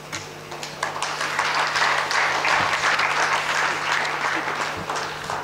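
Audience applauding in an auditorium: the clapping swells about a second in and tapers off near the end.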